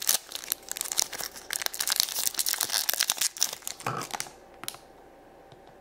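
A crinkly wrapper being torn and crumpled open by hand, a dense run of crackling that stops about four seconds in, leaving only a few faint clicks.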